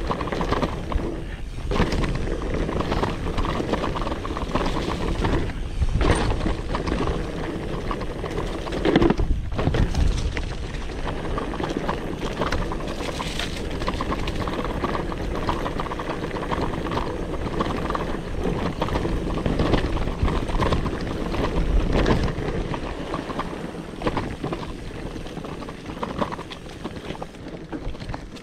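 Mountain bike riding down a rough downhill trail: tyre noise over the ground and rattling of the bike, with wind on the microphone, surging and easing without a break.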